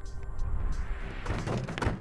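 Cartoon sound effects over background music: a low rumble with a rising whoosh, then a quick run of thuds and knocks in the second half.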